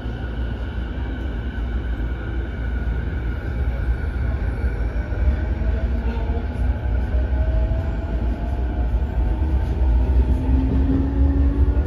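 Interior running sound of a JR E233-5000 series electric train pulling away and accelerating. The traction motors' whine rises slowly in pitch over a steady low rumble of wheels on rails, growing louder as the train gains speed.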